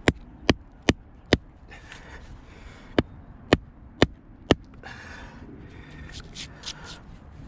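Small sledgehammer striking a steel chisel set into a solid calcite-and-limestone boulder: two runs of four sharp blows, about two a second, with a pause between, then lighter taps near the end.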